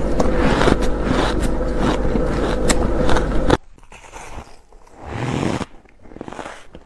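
Close-miked biting and crunching of hard, powdery frozen ice, over a steady hum, cutting off abruptly a little past halfway. Then quieter bites of shaved ice, with one louder crunch about five seconds in.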